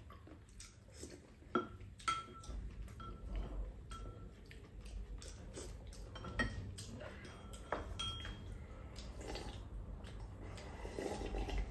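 Spoons and chopsticks clinking against ceramic bowls while eating, in irregular sharp clicks, some leaving a short ringing tone.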